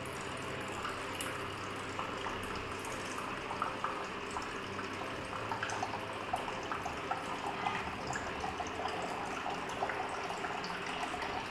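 A thin stream of water trickling steadily out of a small outlet pipe from a plastic tub, with small scattered drips and splashes. This is the outflow of a tabletop hydroelectric model after the water has turned its dynamo.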